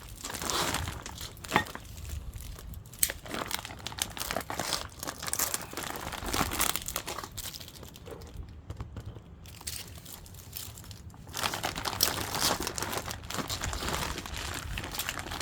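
Packaging crinkling and tearing as the parts of a steering rack kit are unwrapped and handled, with irregular clicks and knocks. There is a quieter spell in the middle, and the handling picks up again near the end.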